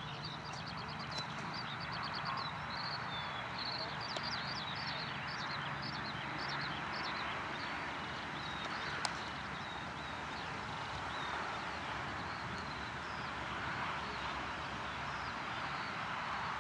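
Steady rush of wingbeats from a large flock of released racing pigeons circling overhead. A small bird chirps a quick, high song over it for the first few seconds.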